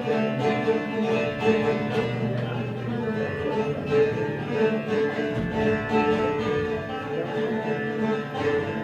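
Bağlama (saz) playing an instrumental passage of semah music, with steady, dense strumming and no singing.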